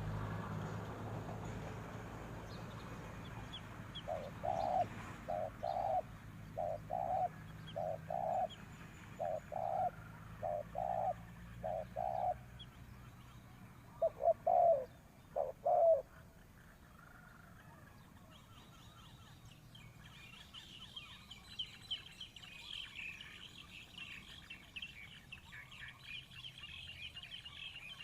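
Spotted dove cooing: a run of about ten low coo notes, then three louder notes a couple of seconds later. In the second half, a dense high-pitched chirping of small birds starts up.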